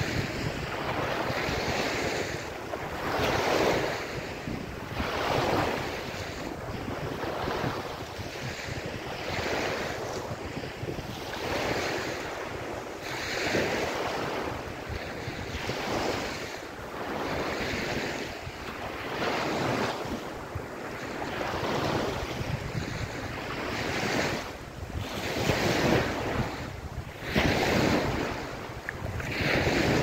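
Small waves breaking and washing up a sandy beach, the surf rushing in fresh surges every two seconds or so.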